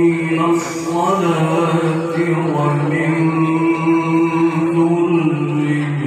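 A man reciting the Qur'an in the melodic tilawah style, amplified through a handheld microphone. He holds long notes with wavering ornaments and slides down in pitch about five seconds in.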